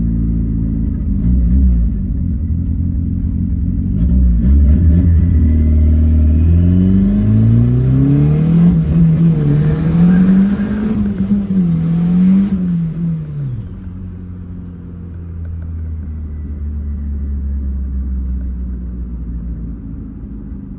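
Turbocharged, carburetted VW AP 1.8 four-cylinder engine of a boxy VW Gol under hard acceleration. The revs climb from about four seconds in, waver up and down for several seconds, then drop back to a low, quieter cruise about thirteen seconds in. The wavering revs fit a slipping clutch, which the driver thinks it was.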